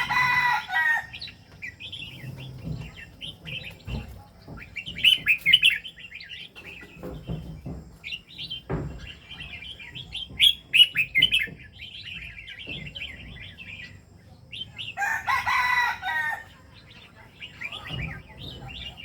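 Bird calls: two longer pitched calls, each about a second and a half, one at the start and one about 15 seconds in, with frequent short high chirps between them.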